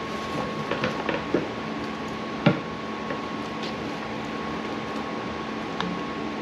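A ladle stirring stew in a cast-iron Dutch oven: a few light clinks, then one sharper knock against the pot about two and a half seconds in, over a steady background hum.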